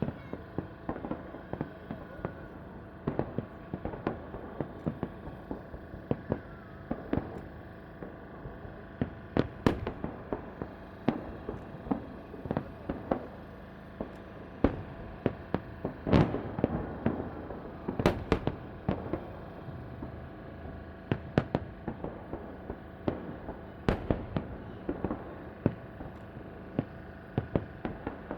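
Fireworks display: a salvo of launch thuds and aerial shell bursts banging at irregular intervals, several followed by crackling, with the loudest bursts around the middle.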